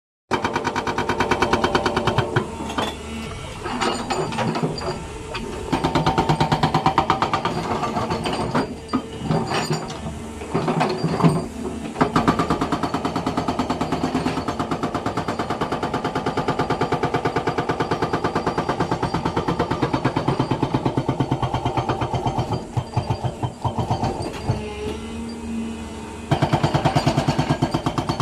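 Hydraulic rock breaker on a Doosan 225LCA excavator hammering rock in a rapid, even train of blows. The beat falters a few times and comes back louder about two seconds before the end.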